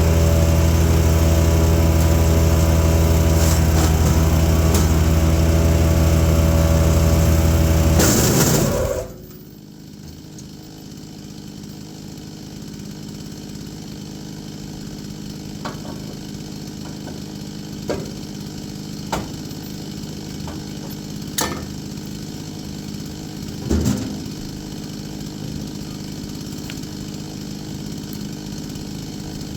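Chipease D1500E wood chipper's 420cc four-stroke engine running steadily at high speed. About eight seconds in the sound drops off sharply to a much quieter steady engine hum, with a few scattered sharp knocks.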